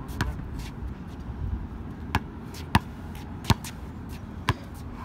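A basketball being dribbled on an outdoor hard court: a handful of sharp, irregularly spaced bounces.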